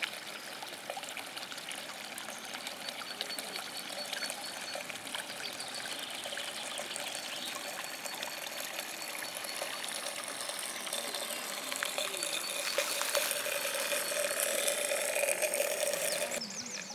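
Steady running-water noise, louder in the last few seconds and cutting off abruptly just before the end.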